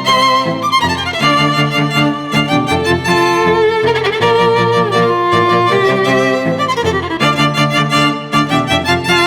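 Background score music: layered held melodic notes over a pulsing beat, with a falling sweep about a second in and a rising sweep around seven seconds in.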